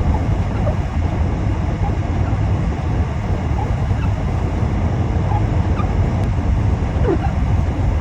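Steady low rumble of a car driving on the highway, with a few faint short squeaks near the end.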